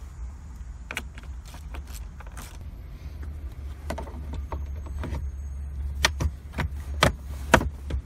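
Sharp plastic and metal clicks from a car's interior trim being refitted by hand: a hand tool snugging down steering column shroud screws, then the lower dash panel being pushed into its clips. The clicks are scattered at first, then come in a quick run of loud snaps over the last two seconds, over a steady low hum.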